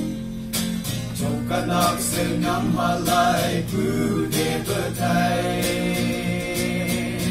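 A group of young men singing a song together into one microphone over a steady instrumental backing.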